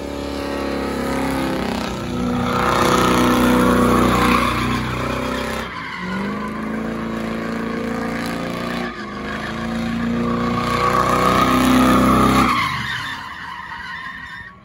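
A car engine held at high revs while its tyres spin and squeal through donuts, in two long surges with a dip about six seconds in; it dies down near the end.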